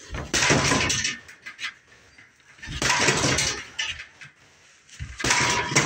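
Gloved punches landing on a hanging Everlast heavy bag: three hits about two and a half seconds apart, each sound trailing on for about a second.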